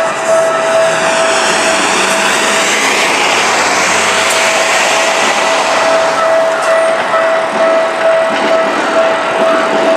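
Japanese level-crossing warning bell ringing in a steady repeating tone while a Keikyu Main Line electric train runs over the crossing. A thin high whine falls in pitch during the first couple of seconds.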